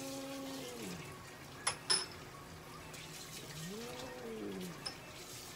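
A cat giving two long, low meows, each rising, holding and then falling in pitch: one at the start and another about four seconds in. Two sharp clicks come just under two seconds in.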